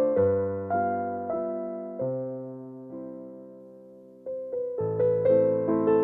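Background piano music: slow chords struck about every half second, decaying through the middle and thinning to a single sustained note, then picking up again with new chords in the last second or two.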